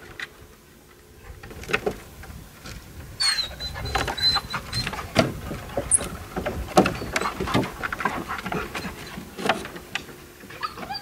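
Loose wooden planks knocking and clattering irregularly as a dog clambers over a pile of old boards, with a brief high squeak a few seconds in.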